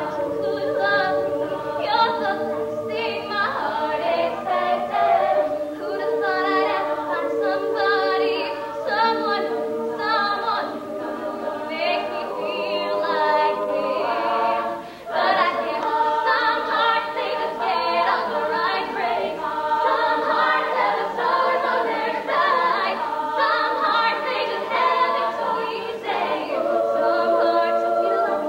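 All-female a cappella group singing in several harmony parts, voices only with no instruments. The singing drops away briefly about halfway through, then comes back in.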